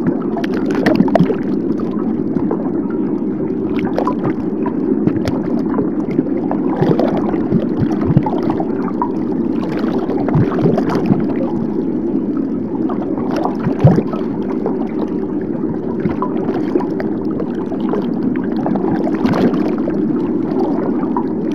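Underwater ambience: a steady muffled rush of water with scattered clicks and gurgles.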